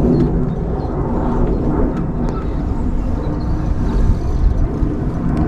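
A steady, fluctuating low rumble of outdoor noise, with a few faint clicks.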